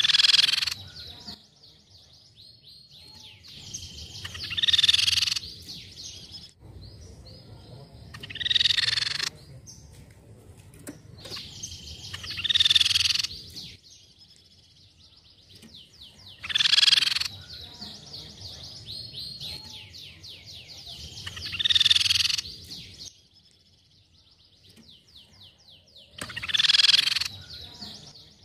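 Crescent-chested babbler (tepus pipi perak) giving a loud call about every four to five seconds, seven calls in all, with a fast ticking rattle running between them.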